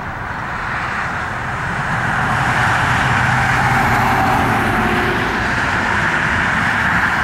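Airbus A320 airliner's jet engines at takeoff power as it climbs away: a loud, steady roar with a low rumble underneath, growing louder about two seconds in and then holding.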